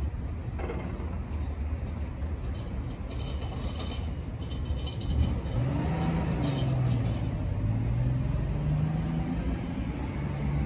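Metro X'Trapolis electric train running at the platform with a steady low rumble. From about five seconds in, a motor tone rises, dips and rises again as the train changes speed.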